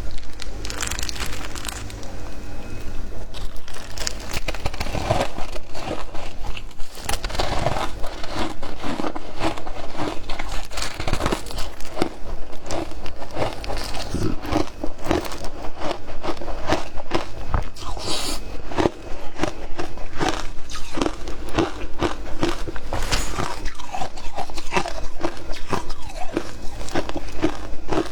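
Frozen matcha ice being bitten and chewed: a dense, irregular run of crisp crunches and cracks.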